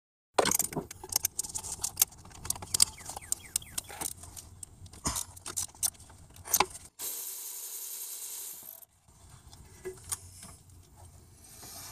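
Long-handled 3/8-inch drive ratchet clicking in irregular strokes as it backs out a 14 mm starter motor mounting bolt, with sharp metal clinks. A steady hiss runs for about two seconds past the middle.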